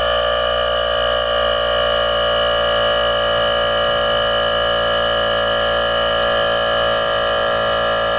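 Ingco cordless tyre inflator's compressor running steadily with an even buzzing hum, pumping air into a motorcycle tyre toward 33 PSI.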